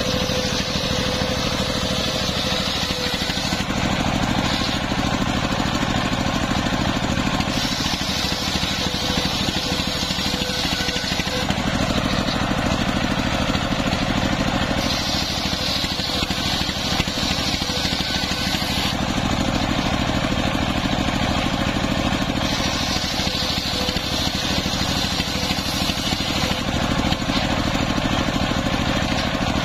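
Engine-driven table circular saw running steadily, its belt-driven blade ripping planks of waru wood. A higher cutting hiss swells and fades about four times over the steady engine drone as each pass goes through the blade.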